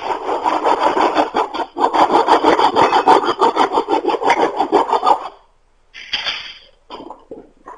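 Handheld saw blade cutting a wooden stick with quick back-and-forth strokes, shortening it, with a brief pause about two seconds in. The sawing stops about five seconds in, followed by a few short knocks.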